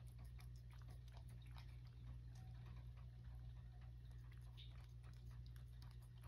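Cat eating soft food from a dish: faint, irregular wet chewing and licking clicks over a low steady hum.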